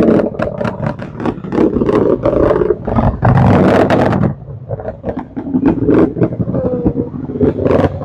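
Distant Falcon 9 rocket's nine Merlin engines heard as a loud rumble with rapid crackling, dipping briefly about halfway. The sound reaches the ground only well after the climbing rocket is seen.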